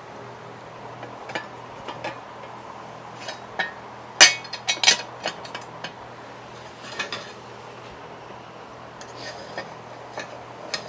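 Metal parts of a lawn tractor's steering gear clinking and knocking together as they are handled and fitted, with a cluster of sharper knocks about four to five seconds in.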